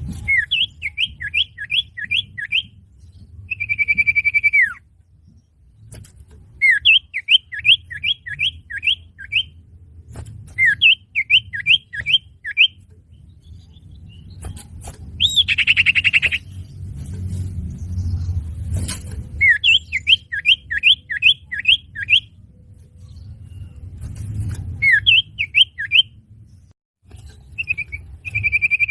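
Common iora (cipoh) song played as a bird lure. Bursts of about six quick, downward-sweeping whistled notes repeat every few seconds, now and then with a long held whistle that drops in pitch at its end. A low rumble runs underneath.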